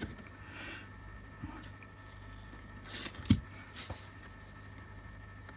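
Small handling noises on a workbench: light rustles and a soft scraping, then one sharp click or tap a little over three seconds in, over a steady low electrical hum.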